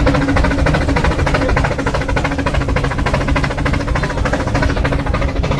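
Rack-railway steam locomotive working uphill, its exhaust puffing in a fast, even rhythm over a steady low hum.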